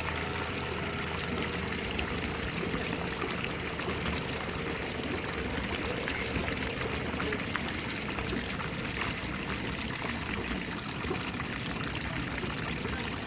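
Swimming-pool water running and splashing steadily, with light clicks of laptop keys being typed on.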